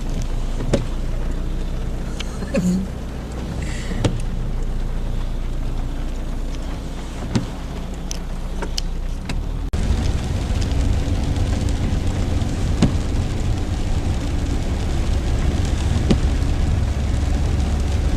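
Car engine and road noise heard from inside a moving car: a steady low rumble with a few sharp clicks and knocks. About ten seconds in it cuts abruptly to a louder, heavier rumble.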